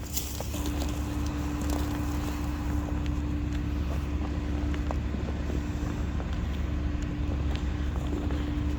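Vehicle running with a steady low rumble and a constant hum over it, with a few faint ticks.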